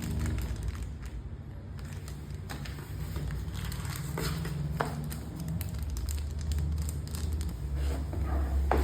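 Keyboard packaging being handled: plastic and cardboard crinkling and rustling, with scattered light clicks and taps over a steady low hum.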